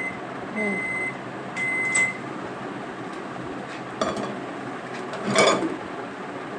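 Microwave oven beeping, short beeps about a second apart, as it does at the end of a cooking cycle. A few seconds later there is a sharp click, then a louder clatter.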